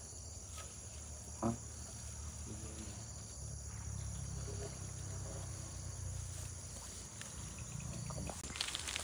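Insects chirring steadily in a high, even tone, with a single knock about a second and a half in. Near the end, dry grass rustles and footsteps begin as someone gets up and moves through the vegetation.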